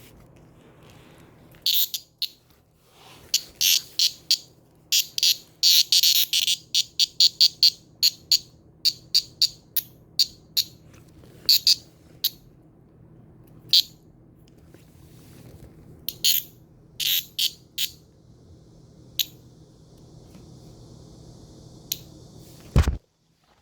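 Minmin cicada (Hyalessa maculaticollis) singing: a loud, high-pitched run of pulsing calls, about three a second at its busiest, that thins out and gives way to a fainter steady buzz. A short low thump comes just before the end.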